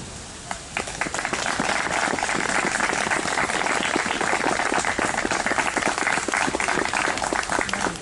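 A small crowd applauding, a few claps about half a second in, quickly building into steady, dense clapping.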